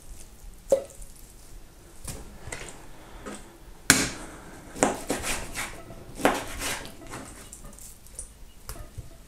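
Scattered knocks and taps of kitchen handling at a plastic cutting board as cut pieces of raw pork are gathered up and cleared off it, with one sharp knock about four seconds in.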